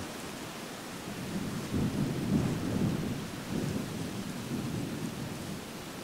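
Wind buffeting the microphone: a low, uneven rumble that swells about a second and a half in and eases off after a few seconds, over a steady hiss.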